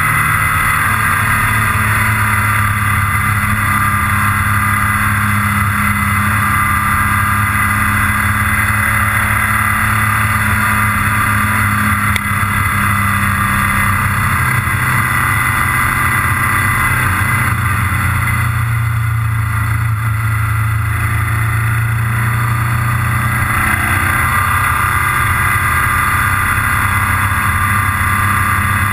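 Wind rushing over the microphone of a moving motorcycle, with the motorcycle's engine running steadily underneath. The wind noise eases for a few seconds just past the middle while the engine note holds.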